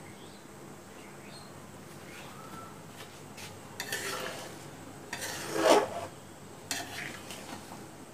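A metal spatula scrapes and stirs against an aluminium pan, moving whole amla through thick sugar syrup. The scrapes start a few seconds in, come as several short bursts and are loudest just past the middle.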